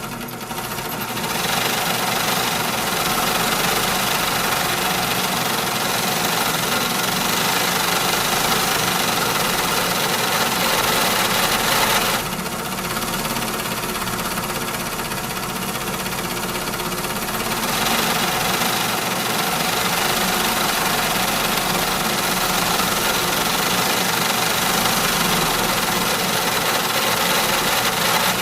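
Loud factory machinery running continuously: a dense mechanical din over a steady hum. Its high hiss falls away about twelve seconds in and returns around eighteen seconds in.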